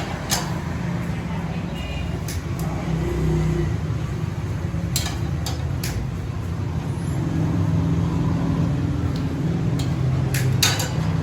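Steady low machine hum with a few sharp clicks or taps, the loudest of them near the end.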